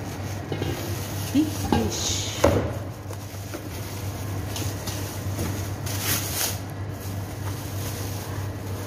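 Handling noises in a kitchen: plastic bag rustling and a sharp knock about two and a half seconds in as a large fish is moved on the counter, over a steady low hum.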